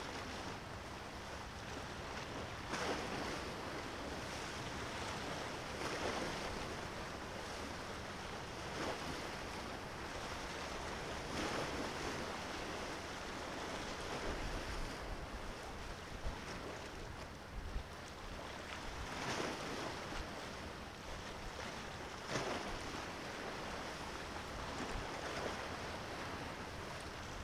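Small sea waves washing onto the shore, one wash swelling and fading about every three seconds over a steady hiss of surf, with a little wind on the microphone.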